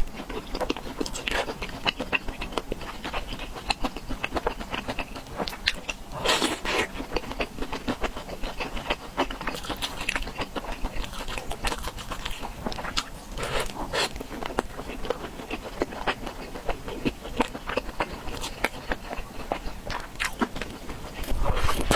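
Close-miked eating of spicy peanut chicken: chewing and mouth sounds made of many small clicks, with a few louder bites spread through.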